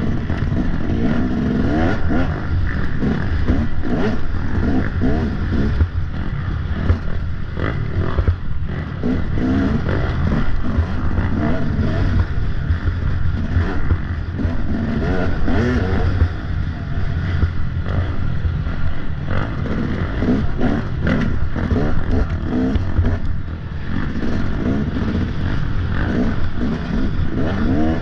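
Off-road motorcycle engine revving up and down over and over as the bike is ridden hard over rough ground, with clattering from the bike.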